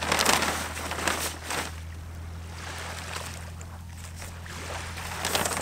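Brown paper packaging rustling and crackling in short bursts as it is pulled back from a rolled inflatable paddle board, over a steady low hum.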